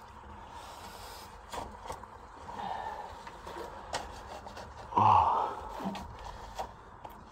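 A person breathing hard, out of breath from crawling out of a tight mine hole, among scattered knocks and scrapes of loose rock and gear, with one loud gasp about five seconds in.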